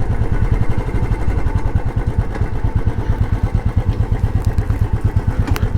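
Motorcycle engine running steadily with a fast, even beat of firing pulses.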